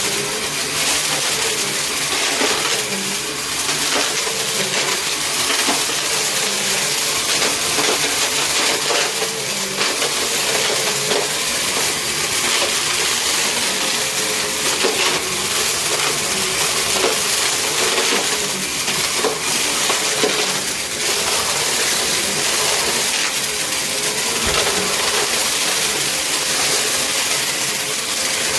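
Small Bissell upright vacuum cleaner running steadily with a constant whine, while hard, crunchy debris crackles and rattles as it is sucked up through the brushroll.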